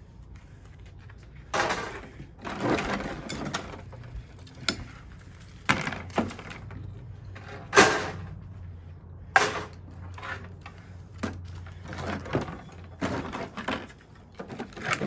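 Irregular knocks, scrapes and crackles as scrap copper wire and welder parts are handled and pulled apart, with a few sharper clanks. A low steady hum runs underneath.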